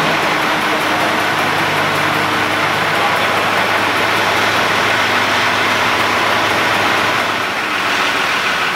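A large engine running steadily.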